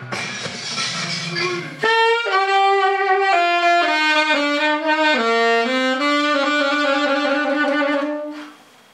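Alto saxophone playing a closing phrase on its own once the accompanying music stops about two seconds in. It plays a run of mostly falling notes, then holds one long final note that cuts off near the end.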